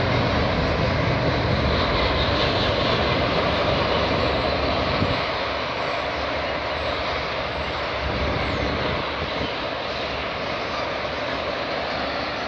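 Freight cars rolling across a steel railway bridge overhead: a steady rumble and rush of wheels on rail. The deepest part of the rumble eases about five seconds in.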